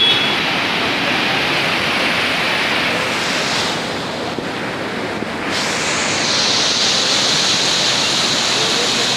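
Muddy river in flash flood rushing and churning past at speed: a loud, steady rush of water, its upper hiss briefly dropping away in the middle.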